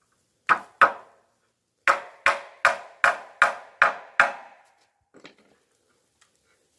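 Hard blows struck on wood: two quick strikes, then a run of six evenly spaced strikes a little under three a second, each ringing briefly. A few faint knocks follow.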